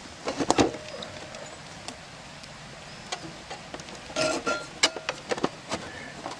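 Scattered clicks and knocks of a solar-panelled electric fence charger box being handled and seated on its mount against a tree trunk, with a short pitched sound a little after the middle.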